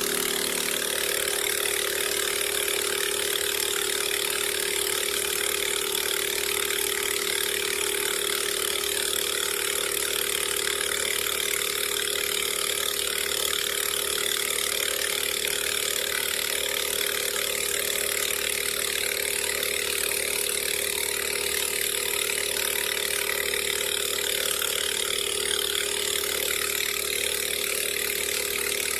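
Engine of a 2-inch portable water pump running steadily, with the hiss of water jetting from a pistol fire nozzle.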